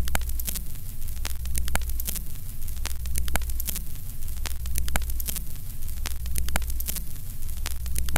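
Old-film crackle effect: a steady low hum with frequent crackling pops and clicks, like a worn film reel or scratchy record.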